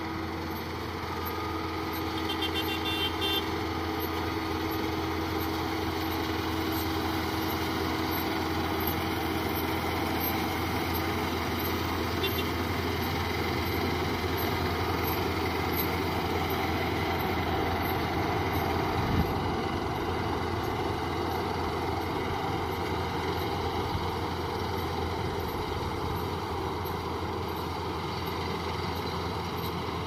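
Rural King RK55 tractor engine running steadily under load while pulling a Case 3450 round baler through the hay, a continuous mechanical hum. One sharp click about two-thirds of the way through.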